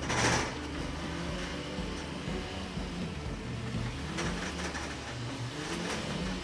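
Semi truck's engine running low and steady as the loaded flatbed rig pulls away slowly, with a short rush of noise right at the start.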